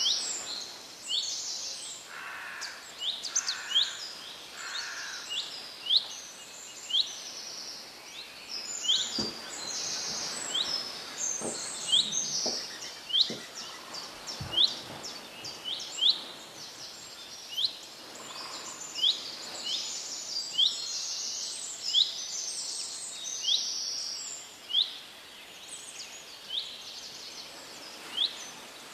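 Birds chirping and singing, with short high chirps repeating about once a second.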